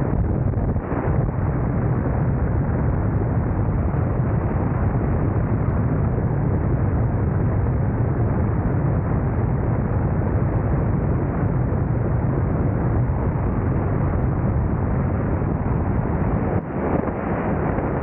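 Loud, steady rush of wind buffeting the camera microphone on a wingsuit pilot in fast flight, heaviest in the low rumble, with a brief lull near the end.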